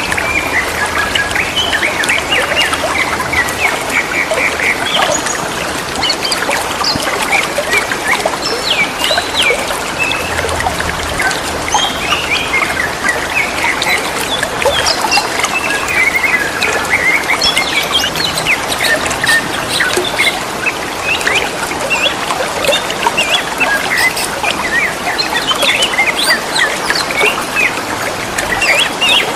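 Green leafbirds (cucak ijo) calling back and forth in a stream of short, sweeping chirped notes, over a steady trickle of running water.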